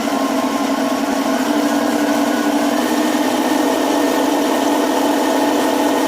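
RC Panther G model tank's TK22 sound board playing its simulated engine sound at full throttle through the tank's small speaker, a steady drone that rises a little in pitch about three seconds in. At full throttle the sound plays correctly, unlike the faulty humming the board gives at idle.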